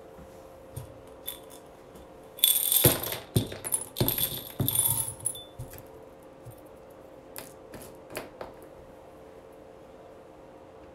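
Seashells and beach glass clinking and rattling together as they are handled. The main burst of rattling starts about two and a half seconds in and lasts about three seconds, with a few single clicks before and after.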